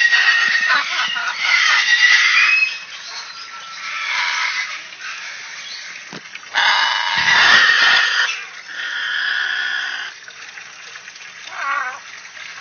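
A parrot calling in several loud bouts of a second or two, followed by a short meow imitation near the end.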